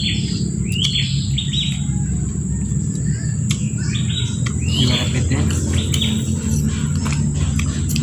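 Birds chirping in short calls that come several times at irregular intervals, over a steady low rumble and a thin steady high-pitched whine.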